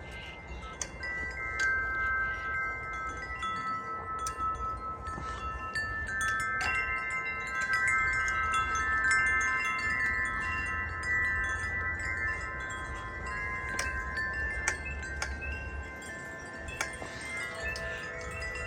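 Large wind chimes ringing in a breeze, many sustained tones overlapping and swelling to a peak midway, with lower notes joining near the end. A low rumble of wind runs beneath.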